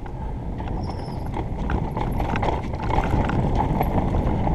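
Mountain bike rattling and knocking as it rolls down a rooty dirt trail, with many quick clicks over a steady low tyre rumble. It gets louder as the bike picks up speed.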